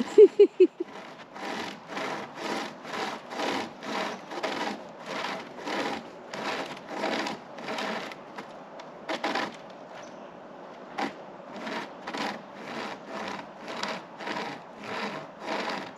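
Hand chain saw, a length of cutting chain looped over a tree branch, being pulled back and forth by its two handles, rasping through the wood in steady strokes, just under two a second. The strokes pause briefly around the middle, then carry on.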